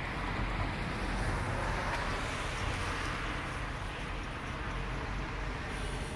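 Harbourfront background noise: a steady low hum under a broad rushing noise that swells a little between one and three seconds in.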